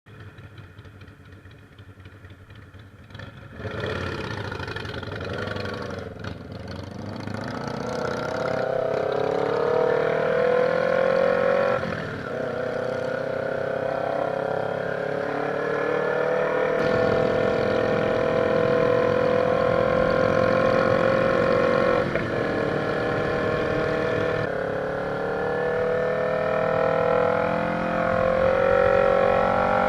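Motorcycle engine heard onboard, probably the Kawasaki Ninja 250 carrying the camera: quiet for the first few seconds, then pulling hard from about four seconds in, its pitch climbing steadily with a few brief dips at the gear changes. Wind rushes past throughout.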